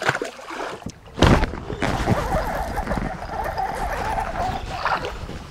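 A hooked fish splashing at the water's surface beside a kayak: one sudden loud splash about a second in, followed by a steady rush of water noise.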